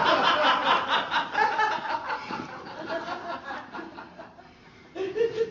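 Sitcom studio audience laughing after a punchline, dying away over about four seconds.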